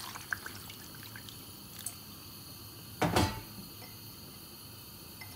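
Water poured from a metal pot onto raw meat chunks in an aluminium saucepan, splashing briefly at the start. About three seconds in there is a single loud knock.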